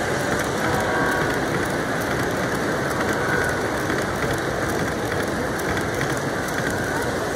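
Model train running past close by, its diesel locomotive units and passenger cars clattering over the track with a steady stream of rapid clicks and a mechanical whir.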